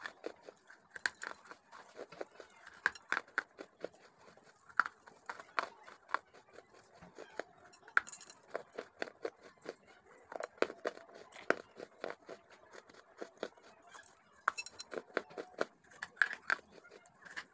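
Close-miked crunching of dry red clay chunks being bitten and chewed: a quick, irregular run of sharp crunches and crackles.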